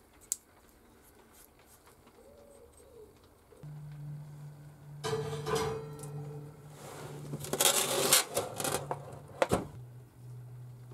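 Metal clattering and scraping as a freshly japanned cast-iron hand plane is set onto an oven's wire rack, then a sharp knock near the end as the oven door shuts. A steady low hum comes in about a third of the way through.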